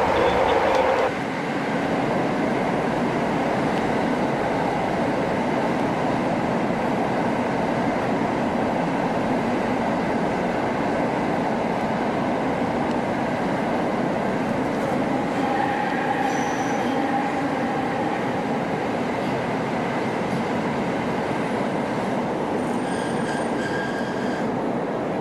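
Passenger train running, heard from inside the carriage: a steady rumble of wheels on the track. Faint high wheel squeals come in around the middle and again near the end. The first second is louder and cuts off abruptly.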